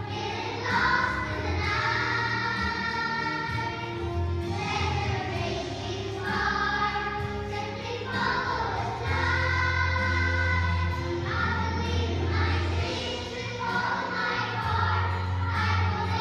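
A class of young children, about six or seven years old, singing a song together as a group in phrases a few seconds long, over steady low sustained notes.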